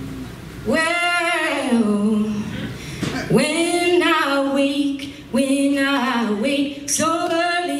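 A woman singing a self-written gospel song solo into a microphone, without accompaniment, in long held phrases that begin about a second in, with short breaths between them.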